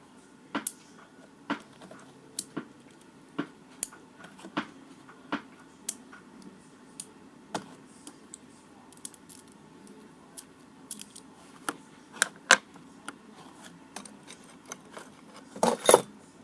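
Small hard objects being handled on a table: a string of sharp clicks and taps, roughly one a second, with a louder clatter near the end.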